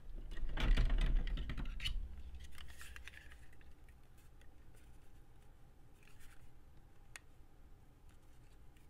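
Paper and fabric being handled: a burst of rustling and light clicks in the first two seconds, then faint scattered ticks.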